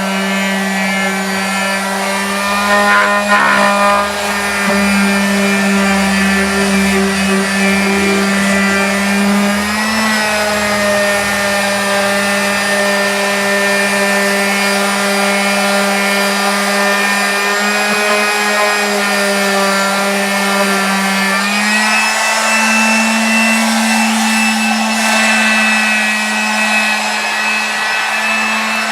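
Electric power sander running steadily while sanding down patched spots on an exterior wall, its motor hum stepping up slightly in pitch about ten seconds in and again a little past twenty seconds.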